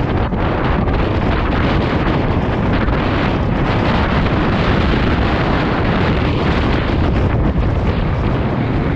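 Loud, steady wind rumble and buffeting on a GoPro Hero 7 Black's built-in microphone.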